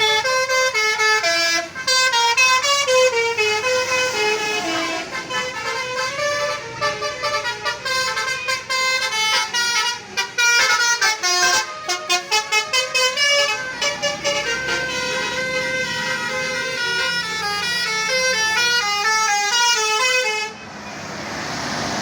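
Bus 'telolet' horn: a set of multi-tone air horns playing a fast melody of short stepped notes, which cuts off suddenly near the end. A rushing noise follows.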